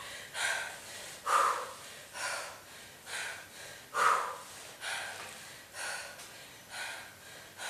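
A woman breathing hard under exertion while doing weighted hip thrusts: short, forceful breaths about once a second, a few louder than the rest.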